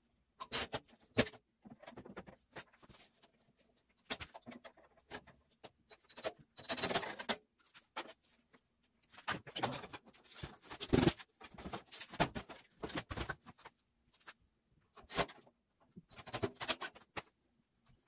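Irregular clicks, knocks and scrapes from handling tools and a toaster oven's sheet-metal casing during reassembly, with a longer scraping stretch about a third of the way through.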